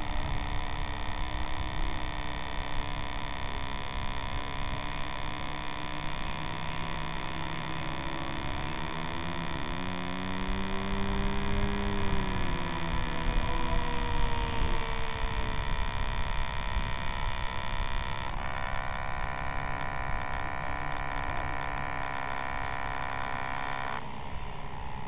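Steady electrical hum and buzz on the plane's FPV camera audio while the landed Skysurfer sits still on the ground. About nine seconds in, a pitched drone rises and then falls over several seconds, and a denser buzz comes in for the last several seconds.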